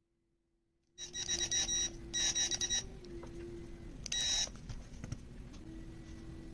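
Cordless drill with a cutter bit boring into a cork, its motor whining in three short bursts on the trigger, starting about a second in.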